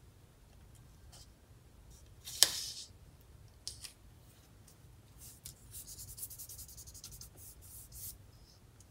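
Sharpie pen scratching on paper in a run of quick short strokes, after a single sharp tap a couple of seconds earlier.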